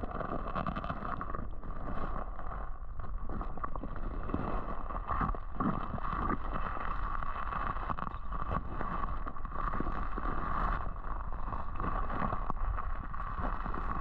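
Creek current heard through a submerged camera: a steady, muffled rush and gurgle of flowing water, with a few faint clicks and knocks.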